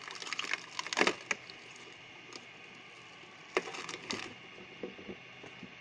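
Wood cracking and splintering under force, in two bouts of sharp cracks, one in the first second and a half and another around three and a half seconds in, with scattered small snaps between.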